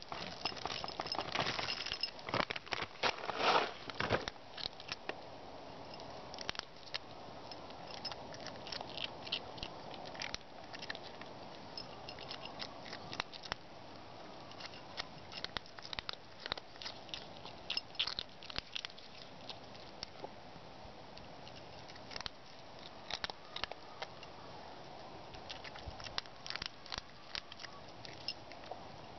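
A small cat eating, crunching its food in quick irregular clicks, busiest and loudest in the first few seconds.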